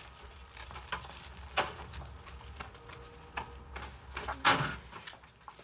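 Scattered knocks, clicks and clatter as a moped is taken hold of and moved, with one louder clunk about four and a half seconds in.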